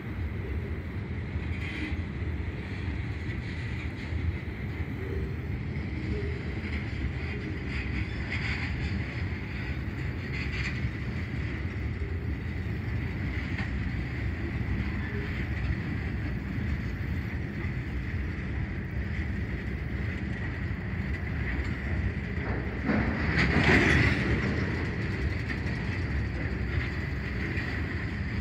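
Union Pacific freight cars rolling past on the track: a steady rumble of wheels on rail with a thin, steady high squeal running through it. It swells louder briefly near the end.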